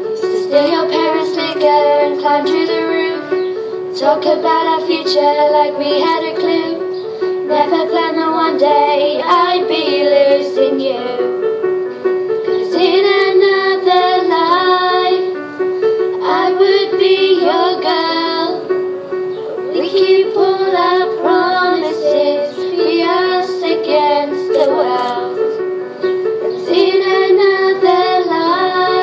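Two young girls singing together, with a Yamaha electronic keyboard playing a steady, repeating pattern of low notes beneath them. The voices come in phrases a few seconds long, with short breaks between them.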